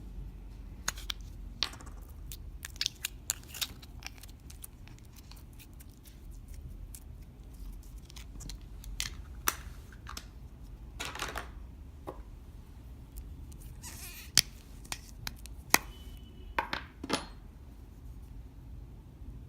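Slime and makeup handled by hand: irregular sharp clicks and short scraping, squishing sounds, the two sharpest clicks coming near the end, over a low steady room hum.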